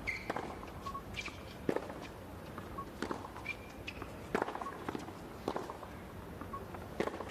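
A tennis rally on a hard court: rackets strike the ball about six times, roughly one hit every second and a half, with short squeaks of tennis shoes between the hits.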